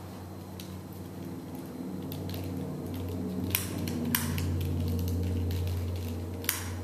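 A steady low hum with faint sustained tones that swell a little in the middle, broken by three sharp clicks: two about halfway through, half a second apart, and one near the end.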